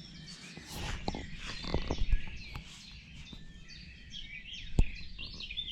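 Dawn chorus: many woodland birds chirping and trilling together over a low steady rumble, with a few sharp knocks, the loudest just before the end.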